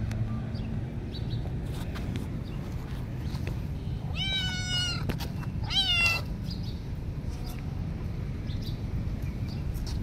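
A small black cat meowing twice, about four seconds in: a high call of nearly a second, then a shorter, louder one that falls in pitch at its end. Steady low background noise runs underneath.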